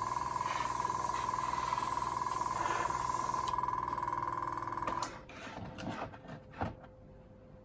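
Airbrush spraying paint with its small compressor running in a steady hum. The hiss of air through the airbrush stops about three and a half seconds in, the compressor cuts out about a second later, and a few light clicks and knocks follow.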